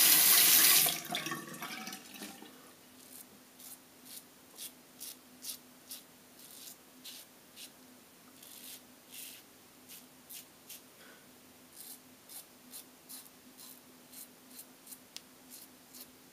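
Edwin Jagger DE89 double-edge safety razor with a Rapira blade scraping through lathered stubble in short strokes, about two a second. A running tap cuts off about a second in.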